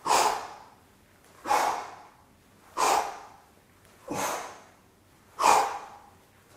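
A man's sharp, forceful exhales, five in a row about one and a third seconds apart, one with each crunch-and-twist of a bicycle crunch.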